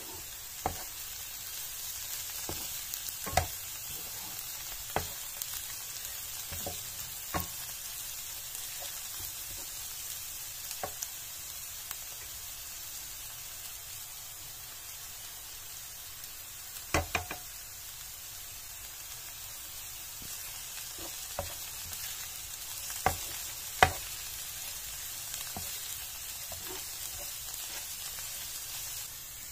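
Chopped leeks sizzling in oil in a frying pan, with a steady hiss, while a wooden spatula stirs them and knocks against the pan now and then; the sharpest knocks come a little past halfway and again near the end.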